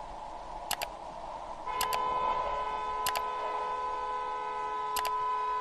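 A car horn sounds in one long, steady, unbroken blast starting a little under two seconds in, over a steady background of traffic noise. Several short, sharp double clicks come at intervals.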